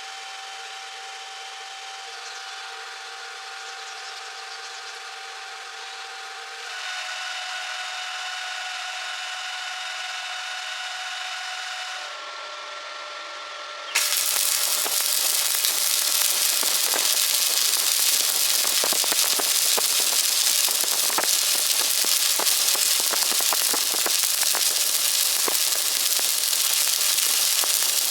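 Abrasive tool working metal with a steady whine that shifts pitch twice. About halfway through it gives way to a stick-welding arc: loud, steady hissing crackle with rapid sharp pops.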